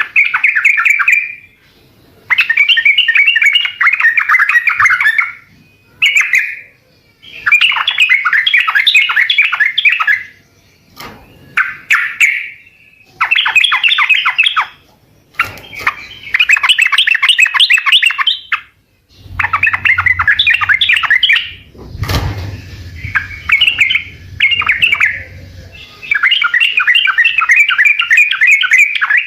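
Yellow-vented bulbul (trucukan) singing: bursts of rapid, bubbling chattering phrases, each a second or three long, repeated after short pauses. A single sharp knock sounds about two-thirds of the way through.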